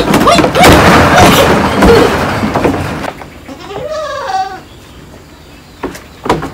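Goat bleating once, one wavering call of about a second, about four seconds in. Before it, a loud, noisy scuffle for about three seconds; near the end, two sharp knocks.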